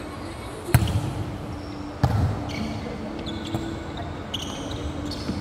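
A volleyball struck hard twice, about a second and a half apart, each smack ringing out in a large arena hall. Short, high squeaks of sneakers on the hardwood court follow.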